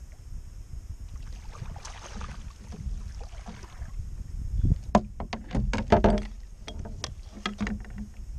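Water splashing and knocking beside a kayak as a hooked fish is brought alongside and scooped into a landing net. The loudest splashes and knocks come in a quick flurry about five to seven seconds in, over a low steady rumble of wind on the microphone.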